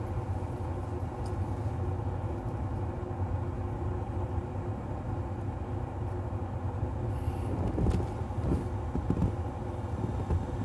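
A steady low mechanical hum with several held tones, unchanging throughout, with a few faint soft knocks in the second half.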